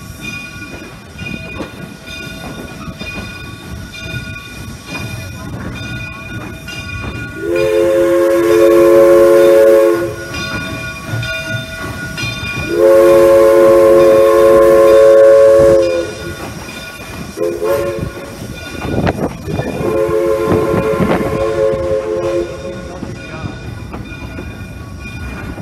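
Steam locomotive No. 401's chime whistle blowing two long blasts, a short one and a final long one, each a chord of several notes at once. This is the standard signal for a road grade crossing. The running train rumbles steadily underneath, heard from close behind the tender.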